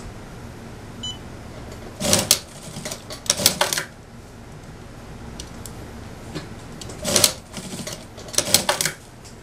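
Industrial lockstitch sewing machine running in four short bursts of a few stitches each, tacking down a belt loop on suit trousers.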